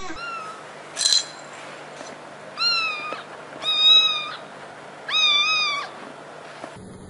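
Young kitten meowing: three high-pitched meows about a second apart, after a short sharp squeak about a second in.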